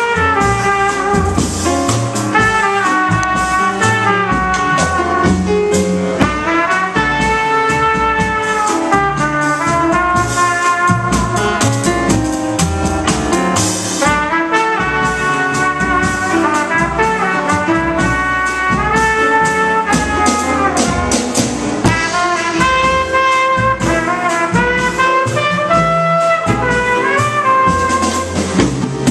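Live jazz trumpet solo, a melodic line of held and moving notes, with grand piano and a drum kit accompanying.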